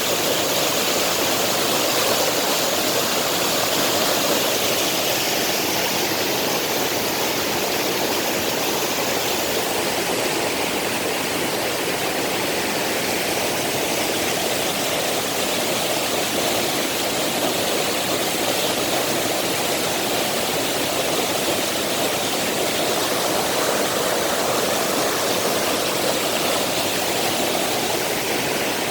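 Mountain stream rushing steadily over rocks, a continuous even rush of water.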